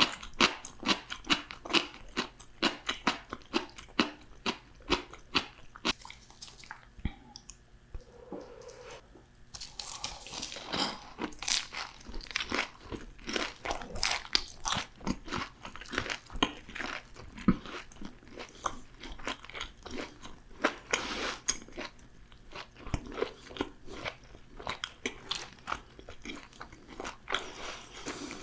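Close-miked crunching and chewing of crisp fried food, dense crackly bites with a brief softer lull about a third of the way in before the crunching picks up again.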